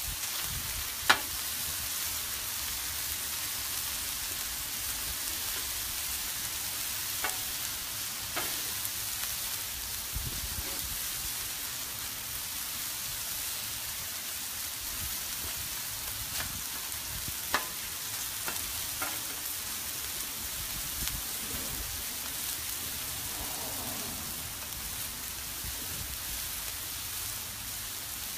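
Chicken pieces and zucchini and yellow squash sizzling on a Blackstone flat-top griddle: a steady frying hiss, with a few sharp clicks, the loudest about a second in.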